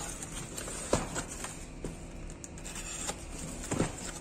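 Hands unpacking a parcel: rustling and handling of the packaging with scattered small clicks, and two sharper knocks, one about a second in and one near the end.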